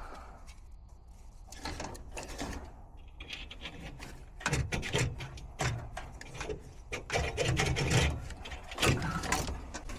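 Irregular clicks, rattles and knocks of tools and metal parts being handled, with a few heavier thumps in the second half.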